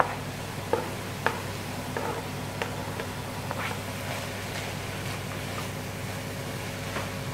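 Diced aubergine being pushed off a chopping board into a cast-iron frying pan of browned mince and stirred with a silicone spatula: a handful of light knocks and scrapes in the first few seconds over a faint sizzle and a steady low hum.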